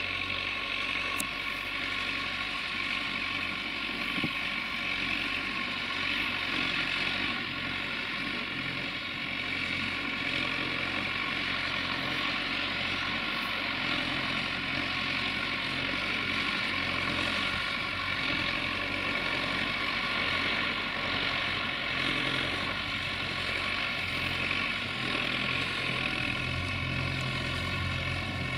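Belarus MTZ 892.2 tractor's four-cylinder diesel engine running steadily under plowing load, its low note growing stronger near the end.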